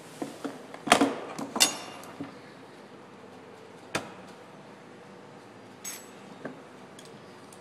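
Pop-riveting by hand at a bench: a few sharp metallic clicks and clinks from the hand rivet gun and loose rivets, the two loudest close together about a second in, then scattered lighter clicks.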